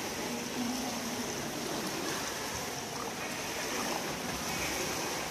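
Swimmers' arm strokes splashing and churning the pool water, a steady wash of water noise with no breaks.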